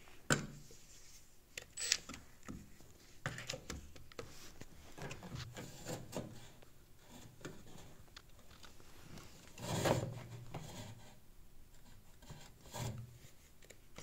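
Handling noise from a hand rubbing and knocking against the plastic and metal parts inside an opened washing machine, with scattered clicks. A sharp click comes right at the start and a longer scrape about ten seconds in.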